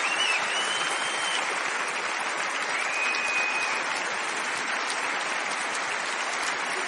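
Large concert audience applauding steadily, with two high held tones over the clapping, one at the start and one about three seconds in.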